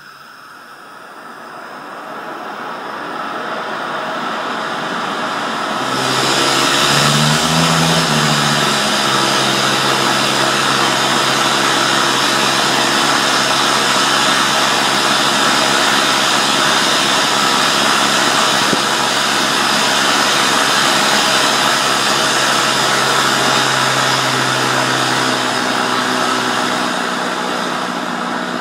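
Small PMMA (acrylic) and gaseous-oxygen hybrid rocket engine firing on 12 liters per minute of oxygen. The burn builds over about the first six seconds into a loud, steady rushing hiss, which eases slightly near the end.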